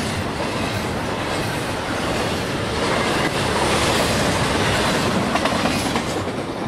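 CSX double-stack intermodal freight train's last well cars passing close by, with steel wheels rumbling and clacking over the rail. The sound starts to fade near the end as the tail of the train goes by.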